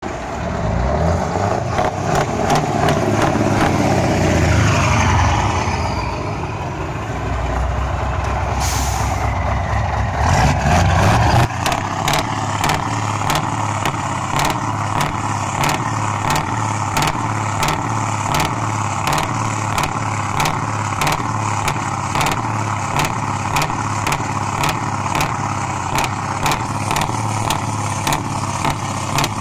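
Scania 144 V8 truck drives past loudly through its open exhaust. It is loudest about four seconds in, and its pitch falls as it passes, with a short hiss of air about nine seconds in. After a cut, a parked Scania 144 V8 idles through its short side-exit exhaust pipe with a steady, regular pulsing beat.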